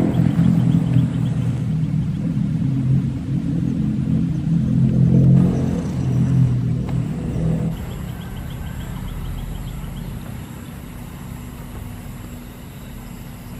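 A motor engine running steadily with a low hum, loud for the first eight seconds or so and then quieter, with a few faint high chirps in the background.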